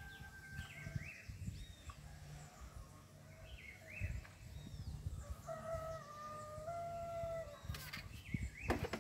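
Birds calling: short chirps, then a longer held call for about two seconds past the middle. Near the end come a couple of sharp knocks as a PVC pipe and fitting are handled.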